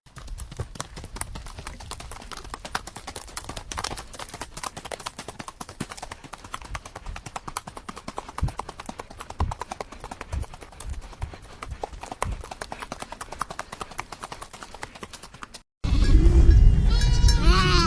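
Dense, irregular clattering of hooves, like a group of hoofed animals moving about. After a sudden cut near the end, loud repeated bleating calls begin.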